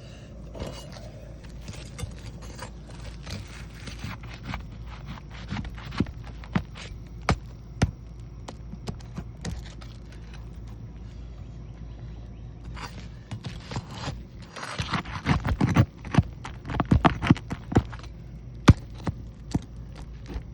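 Roofer working an asphalt shingle loose with a hand tool: scraping and a string of sharp clicks and knocks against the shingles and nails, busiest and loudest near the end.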